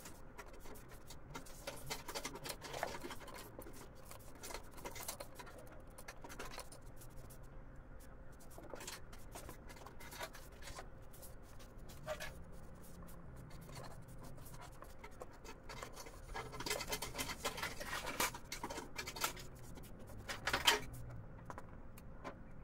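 Small metal parts of a Lancer box-type carburetor being handled and scraped as it is taken apart with a screwdriver: scattered clicks, scrapes and light clinks. The scraping gets busier toward the end, with one sharper clink near the end.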